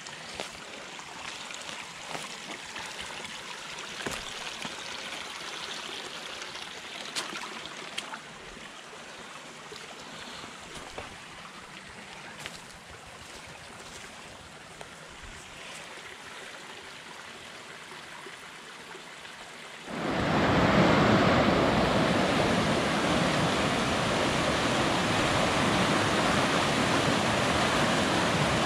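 Soft, steady rush of a river heard through the woods, with a few scattered light clicks; about two-thirds of the way in it cuts abruptly to the much louder, steady rush of whitewater rapids tumbling over rock ledges.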